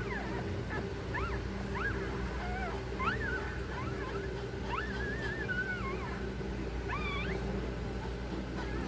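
Shih Tzu squeaks and whines during whelping: a string of short, high-pitched, rising-and-falling cries, with one longer wavering whine about five seconds in, over a steady low hum.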